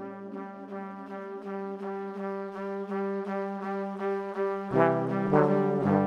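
Background music: sustained brass-like chords over a steady pulse of repeated notes, with a fuller, louder low chord coming in near the end.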